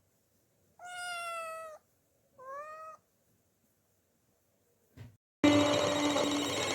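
A domestic cat meowing twice: a long call, then a shorter one that rises in pitch. After a brief click, louder plucked-string background music starts near the end.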